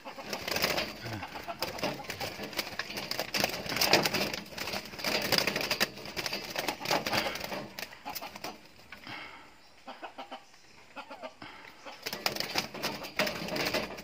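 Caged pigeons flapping and fluttering inside a wooden and wire cage, a busy clatter of wingbeats that dies down about eight seconds in and picks up again near the end.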